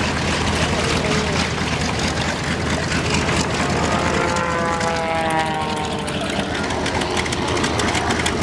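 B-25 Mitchell's twin Wright R-2600 radial engines running with a steady propeller drone as the bomber taxis. About halfway through, the engine note falls in pitch as a whine.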